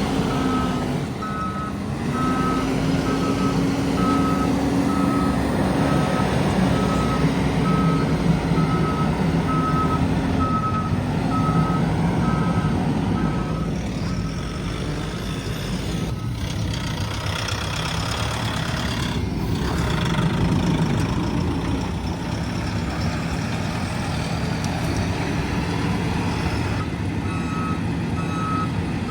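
Diesel engine of a JCB loader working, its pitch rising and falling with the load, while a reversing alarm beeps about once a second through the first half and starts again near the end.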